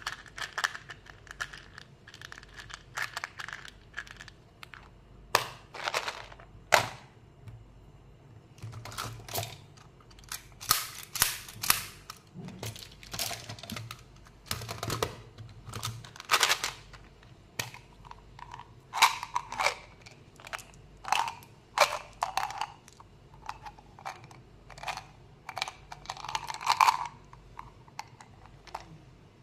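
Plastic candy containers handled close up: sharp clicks of lids and casings and short rattles of hard candy pieces shifting and tipping out, in irregular clusters.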